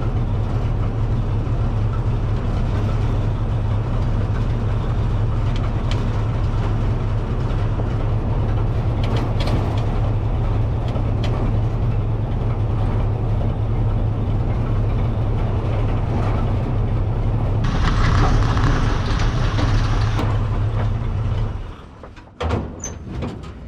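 Vintage modified race car's engine running steadily under way, heard from inside its stripped open cabin. Near the end a harsher rushing noise joins for about two seconds, then the engine sound stops and a few clicks and knocks follow.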